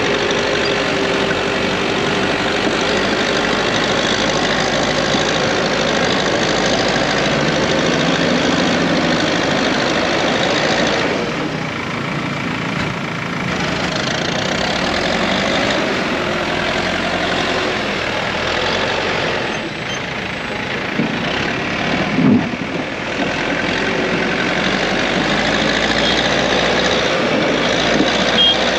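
A heavy vehicle's engine running steadily, with a few brief knocks about three-quarters of the way through.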